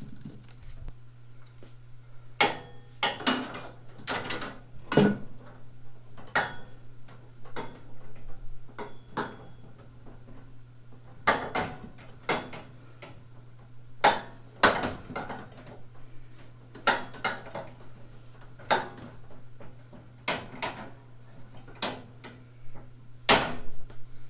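Irregular sharp metallic clinks and knocks of bolts, nuts, plates and a handle being fitted by hand to a steel roller tool cart, over a steady low hum.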